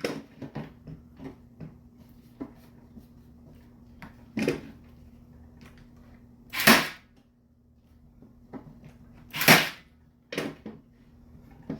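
Milwaukee M12 cordless cable stapler firing staples over electrical cable: sharp shots about four and a half, six and a half and nine and a half seconds in, with lighter clicks and knocks of handling between.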